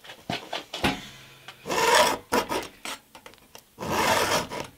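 Round file in a filing guide pushed forward across a cutter of a .325 Stihl saw chain, sharpening it: two long file strokes about two seconds apart, with lighter scrapes and clicks as the file is set on the tooth before them.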